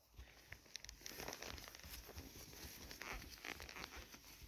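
Faint rustling and scattered soft clicks of horse tack and a walking horse under a rider.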